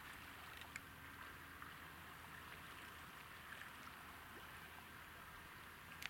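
Faint, steady rush of water spilling over a small sluice weir gate in a ditch.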